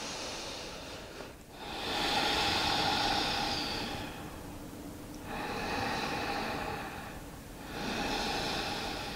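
A woman breathing slowly and deeply: three long, even breaths rise and fall one after another, starting about two seconds in. It is the calm, paced breathing of a seated relaxation.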